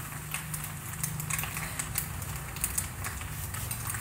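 Food sizzling quietly in a frying pan, with scattered faint crackles over a low steady hum.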